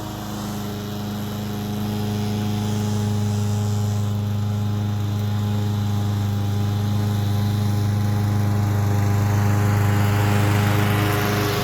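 Masport Rotarola push mower's petrol engine running at a steady pitch while mowing, growing slightly louder toward the end.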